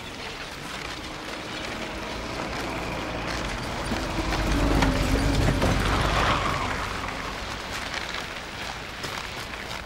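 A motor truck passing along a snowy street, its engine rumble building to its loudest about halfway through and then fading. Under it runs a faint crackle of footsteps and sled runners on snow.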